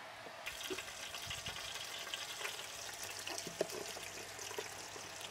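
Cooking sounds: a steady hiss with many small crackles, like liquid in a hot pot, starting suddenly about half a second in, with a few light knocks.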